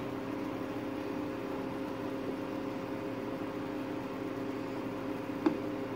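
Steady machine hum over a light hiss, with one short click about five and a half seconds in.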